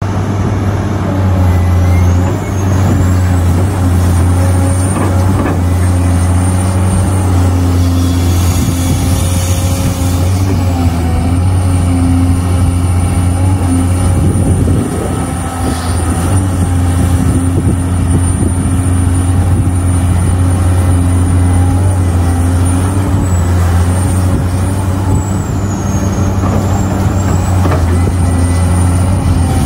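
Cat excavator's diesel engine running with a steady, loud drone while it digs and loads earth into a dump truck.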